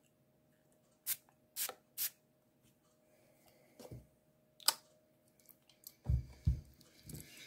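Perfume atomiser sprayed in short hissing puffs, three close together, then a couple more a few seconds later, followed by low thuds of the bottle being handled.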